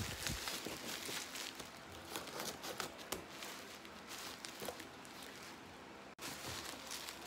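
Plastic bubble wrap crinkling and crackling as it is snipped with scissors and pulled at by hand on a cardboard box.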